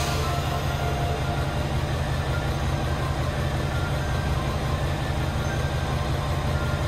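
Steady low rumble of a KiHa 281 series diesel express train's engines idling as it stands at the platform before departure.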